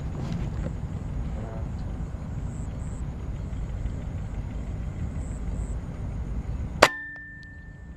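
A single air rifle shot about seven seconds in: a sharp crack followed by a brief ringing tone, over a steady low rumble.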